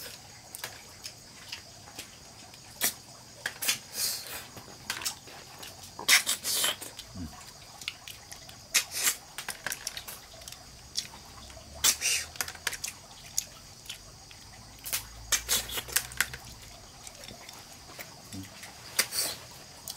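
Scattered sharp clicks and light rustling scrapes at irregular intervals, like things being handled, with a faint low rumble roughly two-thirds of the way through.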